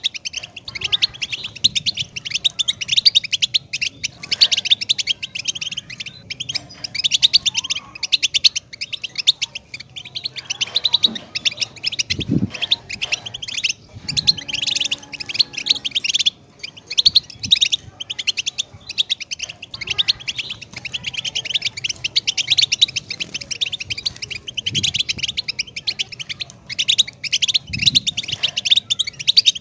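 European goldfinch singing: a fast, continuous twittering warble of high chirps, broken by a few short pauses.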